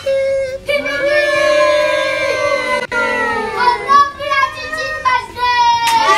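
Singing with music: a vocal line of held notes that slide up and down in pitch.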